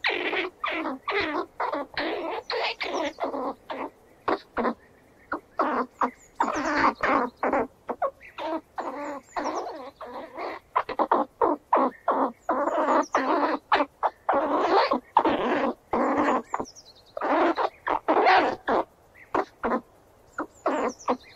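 Squirrel chattering: rapid runs of harsh, short calls, several a second, in bursts with brief pauses between, some ending in a high falling note.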